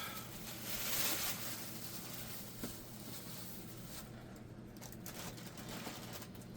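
Rustling and handling noise as LEGO sets and pieces are moved about, loudest in the first second or so, with a light click about two and a half seconds in.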